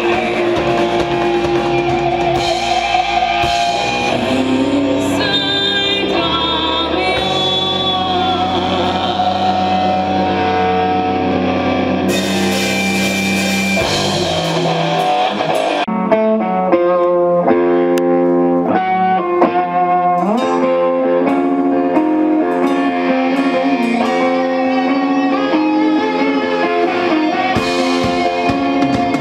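Live rock band playing: distorted electric guitar, bass and drums, with a woman singing. About halfway through, the heavy low end drops away for a lighter melodic passage, and the full band comes back in near the end.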